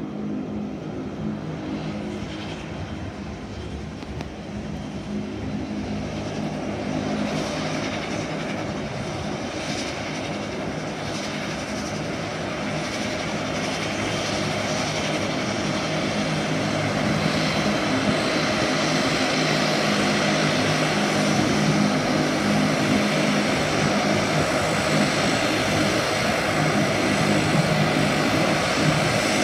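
De Havilland Canada Dash 8-300's twin Pratt & Whitney Canada PW123 turboprops running at taxi power: a steady low propeller drone under a rushing turbine noise, growing steadily louder as the aircraft taxis closer.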